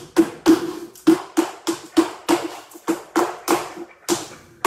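Flamenco shoes striking a wooden floor in an even bulerías footwork rhythm, about three sharp strikes a second, with a short pause near the end.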